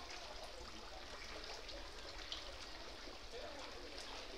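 Shallow floodwater sloshing and splashing around people wading through a flooded street, a steady watery hiss with faint voices in the background.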